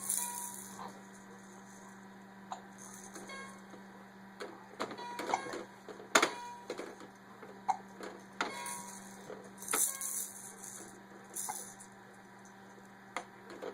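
A person hiccuping: a series of short, sudden hiccups at irregular intervals, the loudest about six seconds in.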